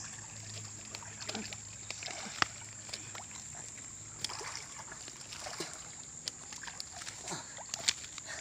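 Water splashing and sloshing irregularly as a person swims and wades through a river.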